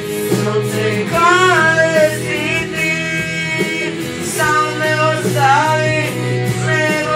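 A young male voice singing a ballad into a microphone, accompanied by an acoustic guitar. The guitar chords sound throughout, with sung phrases about a second in and again around the middle.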